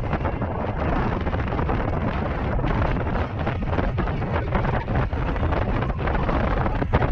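Wind buffeting the microphone of a rider moving on an electric unicycle: a loud, steady rush of noise with gusty ups and downs.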